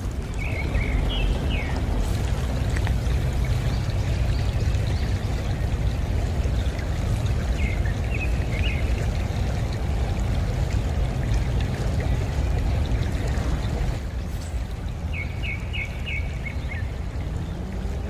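Small creek running and rippling over cobbles in a steady wash of water sound. A small bird chirps briefly three times: near the start, in the middle and near the end.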